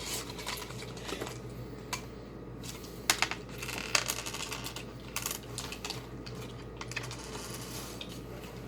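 Small hard plastic craft crystals clicking and clattering against each other and a tabletop, in a handful of separate sharp clicks over a low hum.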